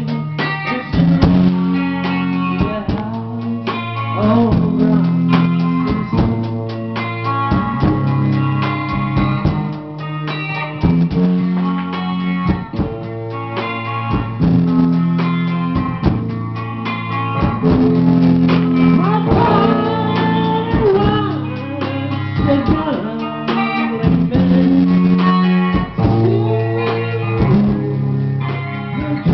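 Amateur band music played live on electric guitar, with steady low bass notes, drums, and a man singing at times.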